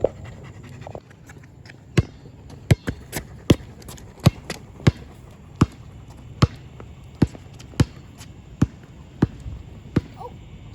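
A basketball being dribbled on a hard court: after a quiet start, sharp bounces begin about two seconds in and go on at about three every two seconds, a little uneven at first.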